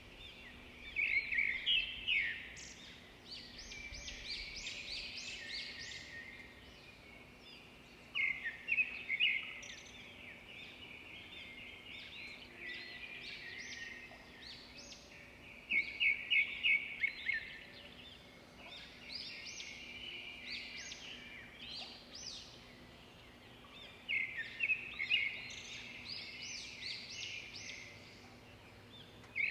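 Songbirds singing in bouts of rapid chirping notes, a loud bout about every seven or eight seconds with quieter calls between, over a faint steady low hum.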